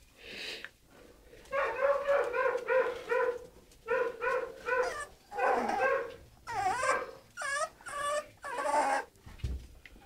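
American Staffordshire Terrier puppies whining: runs of short, high-pitched whimpers about three a second, then from about two-thirds of the way in, longer whines that waver up and down in pitch.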